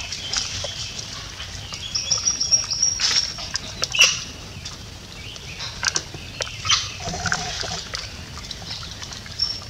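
Birds chirping and whistling, with a high steady whistle held for about a second starting about two seconds in, among scattered short clicks.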